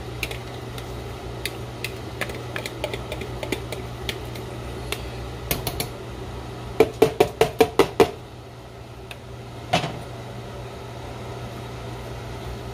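Cooking utensil knocking against a pot: light clicks and scrapes, then a quick run of about eight sharp knocks just past halfway and a single knock a couple of seconds later, over a steady low hum.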